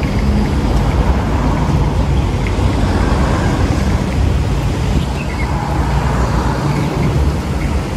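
Steady low rumble of urban outdoor noise, with a couple of faint bird chirps about five seconds in.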